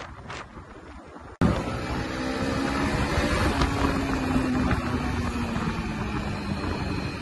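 Wind rushing on the microphone, then an abrupt jump about a second and a half in to a Yamaha MT-15's 155cc four-stroke engine running at road speed under heavy wind noise, its pitch slowly falling as the throttle eases.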